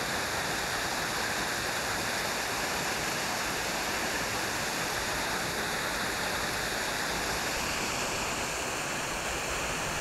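Water pouring steadily out of a pond's outflow drain through an ice-fringed concrete culvert: an even, unbroken rush.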